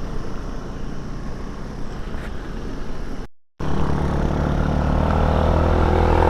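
Scooter engine running on a rough dirt road, with road rumble and wind noise on the helmet camera. After a short dropout about three seconds in, a steadier engine drone whose pitch rises slowly as the throttle opens.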